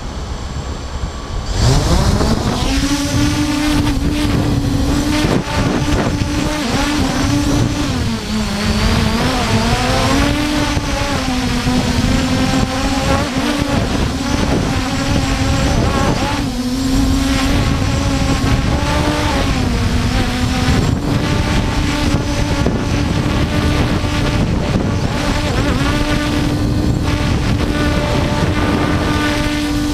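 Force1 F100 quadcopter's motors and propellers spinning up about a second and a half in, then a steady high whine. The pitch dips and recovers several times as the throttle changes in flight.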